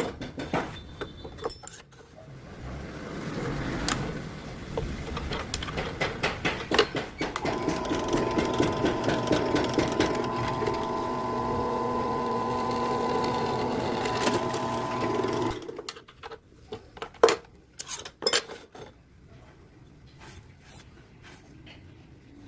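Electric drill running and drilling, uneven at first and then a steady whine, stopping suddenly about fifteen seconds in; a few light clicks and knocks follow.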